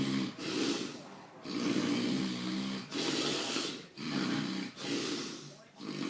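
A person snoring: a run of pitched, rattling snores on the breaths in and out, about one a second with short gaps between them.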